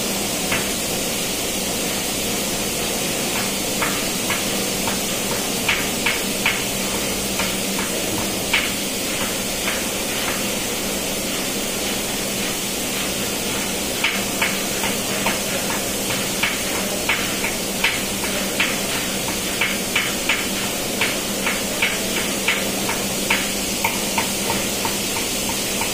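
Steady machinery drone with a constant low hum, as in a ship's engine room. Over it come sharp light taps, scattered at first, then about two a second in the second half.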